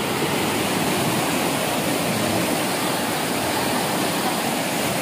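Fast-flowing muddy river water rushing and churning along an earth bank: a steady, loud rush.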